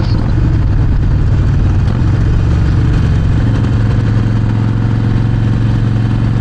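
Harley-Davidson Sportster Forty-Eight's 1200 cc V-twin running loud through Vance & Hines exhaust pipes, with the engine note settling into an even, steady pitch about halfway through.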